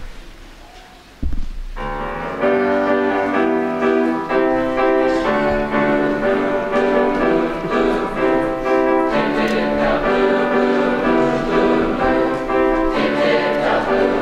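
Boys' choir singing with piano accompaniment, the music starting about a second and a half in after a brief low thump; the voices hold sustained chords that shift note by note.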